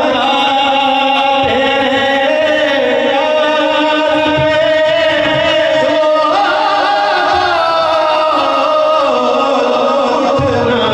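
A man chants a naat, an Urdu devotional poem, into a microphone. He sings in long, held, gliding notes.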